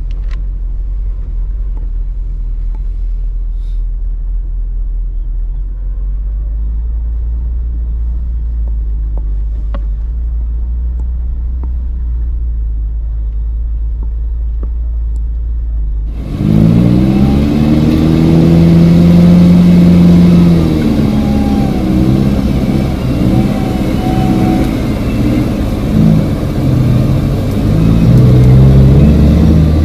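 Steady low drone of an off-road vehicle's engine heard from inside the cab. About sixteen seconds in, it abruptly gives way to a lifted Suzuki Escudo's engine revving, its pitch rising and falling, as the 4x4 claws up through a deep muddy rut.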